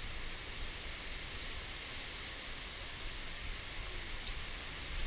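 Steady outdoor background hiss in woodland, with a faint low rumble underneath and no distinct events.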